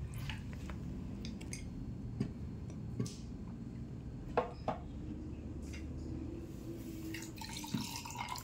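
Canned milk trickling in a thin stream over ice cubes in a glass, with a few light knocks and clinks as the can and glass are handled. Near the end, black coffee is poured from a bowl over the ice.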